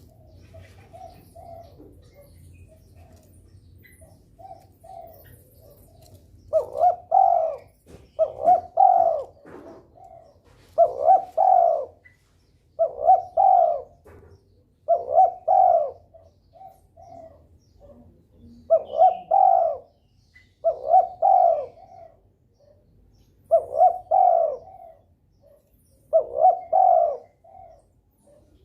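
A male derkuku (Sunda collared dove) in breeding condition cooing. Soft short coos come first, then from about six seconds in it gives a loud cooing phrase roughly every two seconds, with quieter notes between the phrases.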